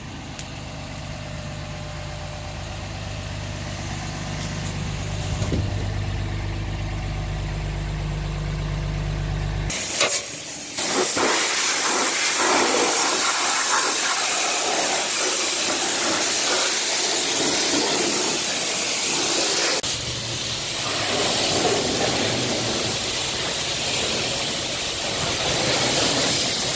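A steady low engine hum for about the first ten seconds, then a pressure-washer wand spraying water hard onto a car's engine bay and body, a loud hiss that goes on to the end, with the low hum returning about two-thirds of the way through.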